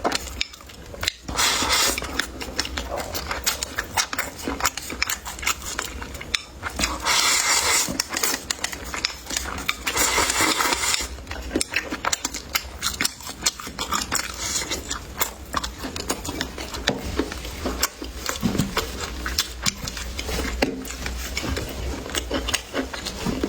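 Close-miked eating: many small, irregular clicks of utensils against bowls and plates, mixed with chewing. Three louder, noisier stretches stand out briefly.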